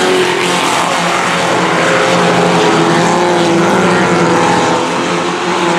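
Engines of several Pro 4 dirt-track race trucks running hard together at racing speed, several engine notes overlapping and shifting slightly in pitch.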